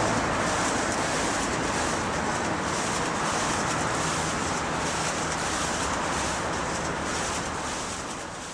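Steady rushing noise of a water curtain's falling sheet of water, mixed with city street traffic, fading out near the end.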